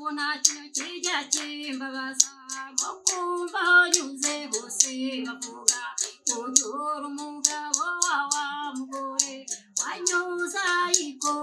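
A voice singing a song to the accompaniment of an umuduri, the Rwandan musical bow, whose string is struck in a steady rhythm of sharp clicks, about three a second.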